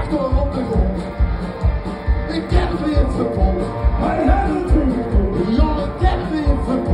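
Live rockabilly song with an upright double bass keeping a steady beat, and a man singing.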